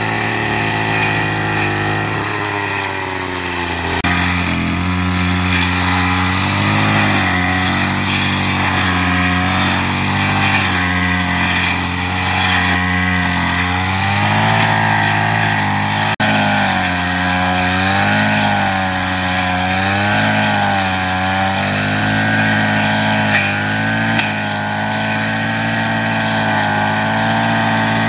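A small engine running steadily throughout, its speed rising and falling every second or two.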